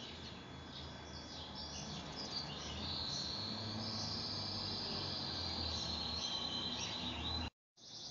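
Faint high-pitched chirps, then a long, steady high trill lasting about five seconds that cuts off abruptly near the end.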